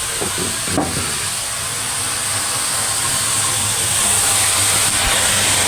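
Steady hiss of a stove heating a pot of water, growing a little louder after a few seconds, with a brief click about a second in.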